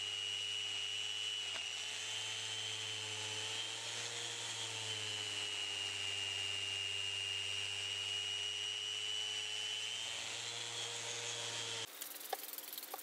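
Festool Rotex sander with coarse sandpaper running steadily, a high whine that wavers slightly in pitch as it grinds cured epoxy drips off a walnut slab. It cuts off abruptly near the end, leaving a few faint clicks.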